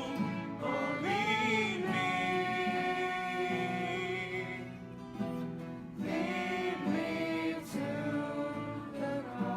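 A choir singing held notes in harmony, with a brief break about five seconds in before the voices come back in.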